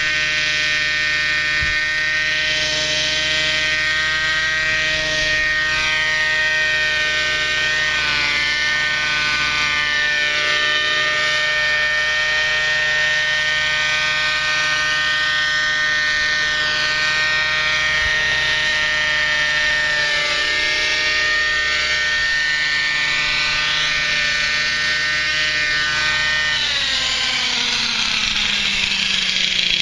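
Thunder Tiger 30 nitro RC helicopter's small glow engine and rotor running steadily in a hover, the pitch wavering slightly. A few seconds before the end the pitch drops as the engine slows.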